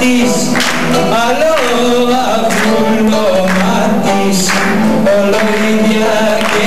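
A young man singing a traditional Greek Christmas song into a microphone, accompanied by a bouzouki and an electric guitar.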